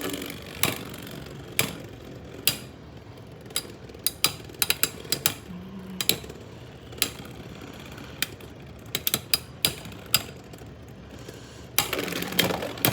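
Irregular sharp plastic clicks and knocks, some in quick little clusters, as Beyblade X tops and launchers are handled and set up between battles.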